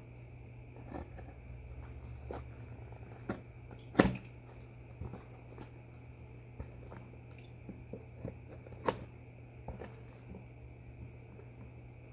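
Objects being handled at close range: scattered light clicks and knocks, with a sharp knock about four seconds in and another near nine seconds, over a steady faint hum.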